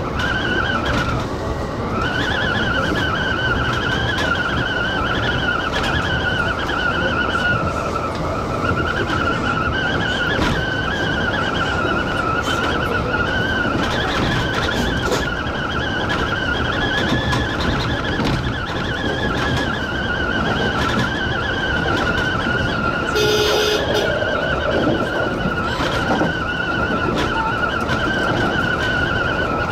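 Kintetsu express train running, with a continuous high-pitched squeal that wavers slightly in pitch over the rumble of the wheels on the track, typical of wheel flanges grinding on a curve. A short, higher sound cuts in about 23 seconds in.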